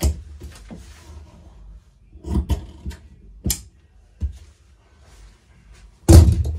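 Handling noise at a cutting table: a few scattered clicks and knocks as scissors and a metal ruler are moved, then one loud heavy thump about six seconds in.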